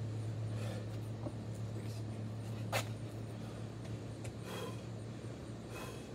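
Steady low hum, with a few short heavy breaths from a person exercising between burpees, and one sharp click a little under three seconds in.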